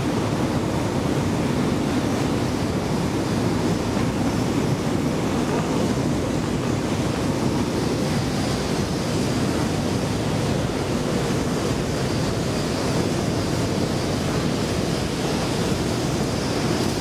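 Long metro-station escalator running under the rider, a steady rumbling hum with a faint high whine joining about halfway through.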